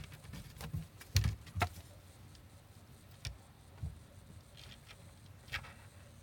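Cats playing, making a scatter of soft knocks and taps. The loudest two come close together just over a second in, with a few fainter ones after.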